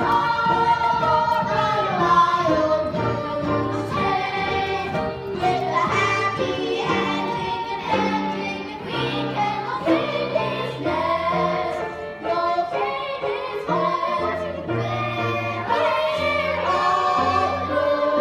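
A group of voices singing a show tune over an instrumental accompaniment with a bass line that steps from note to note.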